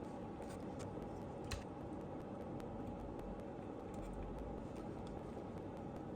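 Steady low background noise with a few faint small clicks, the clearest about a second and a half in.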